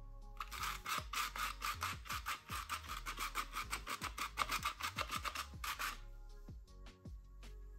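Fine-mesh sieve being shaken to dust powdered sugar, its mesh rasping in a fast, even run of strokes that stops abruptly after about five seconds. Soft background music continues underneath.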